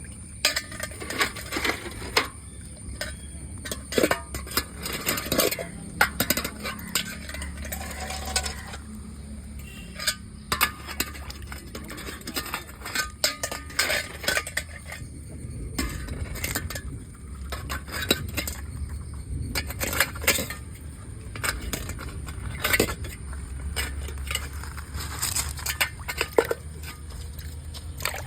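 Irregular clinks and knocks of hard objects, like metal or crockery being handled, over a steady low hum.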